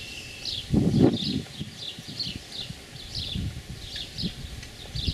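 Small birds chirping over and over, short high chirps two or three times a second. Underneath, low rumbling noise on the microphone, loudest about a second in.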